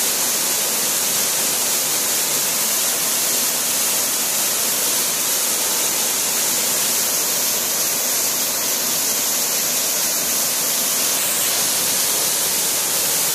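Tiered waterfall pouring down stepped rock ledges into a pool: a steady, hissing rush of falling water that never lets up.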